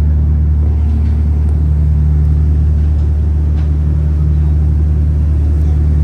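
Marine diesel engines running with a steady low drone.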